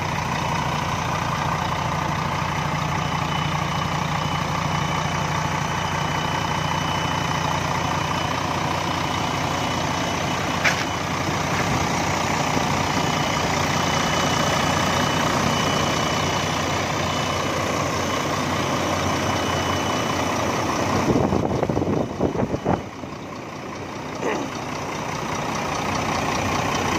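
Weichai engine of a bare Yutong ZK6127H bus chassis idling, a steady drone with a thin high whine over it. It drops quieter for a couple of seconds near the end, with a few knocks.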